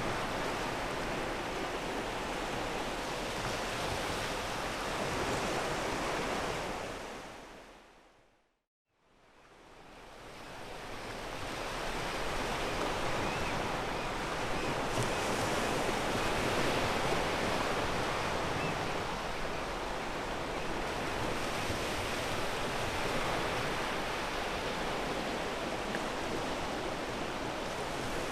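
Ocean waves breaking and washing over a pebble beach, a steady rushing surf noise. About seven seconds in it fades out to silence, then fades back in over the next few seconds.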